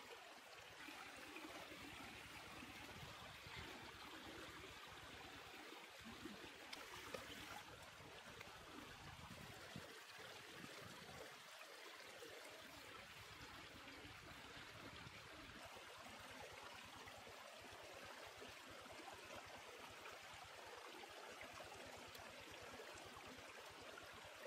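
Faint, steady rushing of a small forest stream running over rocks.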